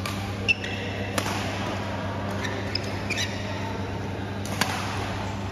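Badminton rally: a shuttlecock struck by rackets four times a second or so apart, the first hit the loudest, with short squeaks of shoes on the court floor in between, over a steady low hum.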